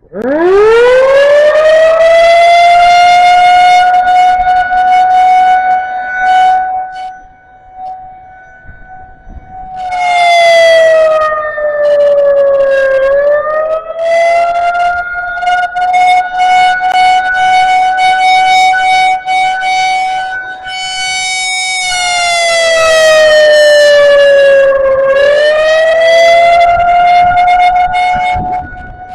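Federal Signal 2001-SRN rotating single-tone outdoor warning siren winding up from silence to a high steady tone within a couple of seconds, starting its one-minute Alert signal. The pitch sags and recovers twice, and the loudness swells and fades as the rotating head turns toward and away.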